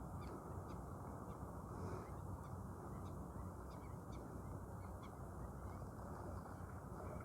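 Birds calling in short, sharp chirps, two or three a second, over a steady low background rumble.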